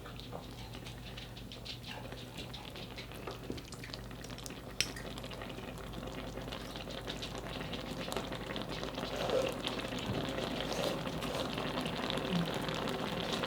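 Dakgalbi frying and sizzling in a pan, growing gradually louder, with light clicks of a utensil stirring and a single sharp clink about five seconds in.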